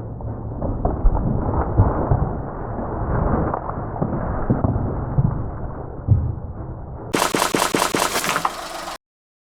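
A car tyre rolling over and crushing objects: a long run of dull crackling, snapping and thumps. Near the end it changes to a sharper, faster rattle of pops.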